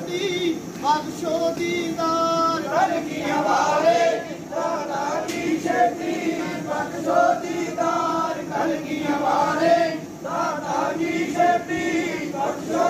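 Group of Sikh pilgrims singing a devotional chant together in unison, mostly men's voices.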